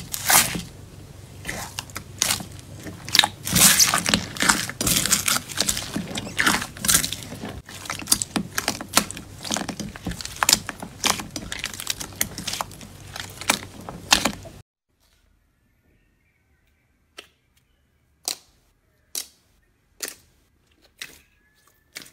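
Hand kneading crunchy bead-filled slime: a dense run of crackling and popping crunches. About two-thirds of the way in it cuts off suddenly, leaving a few sharp single pops about a second apart as clear slime is pressed.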